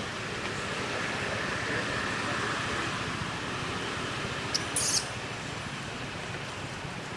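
Steady outdoor background hiss, with a short crackle of dry leaf litter underfoot about five seconds in as a long-tailed macaque walks over it.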